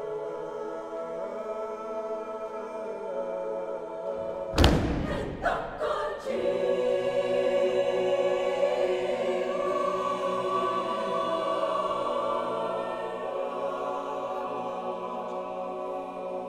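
A choir singing long sustained chords. About four and a half seconds in, one loud percussive hit and three quicker, smaller ones cut through, and the chords then swell louder.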